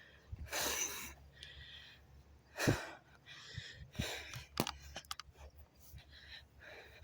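A person's breathing close to the microphone, a few loud breaths, with a sharp knock partway through and a quick run of small clicks a little later.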